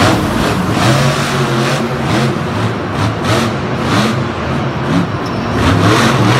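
Engine sound revving up and down, with sharp hits recurring every half second to a second.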